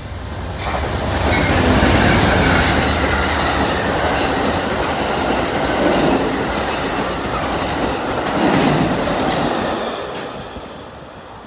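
Amtrak passenger train, a GE P42 diesel locomotive hauling double-deck Superliner cars, passing at speed. The locomotive's deep engine rumble gives way to the rush and clatter of the cars' wheels on the rails, which fades away over the last couple of seconds.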